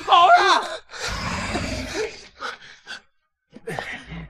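A woman shouts "Run!", then gasping, heavy breathing of people running.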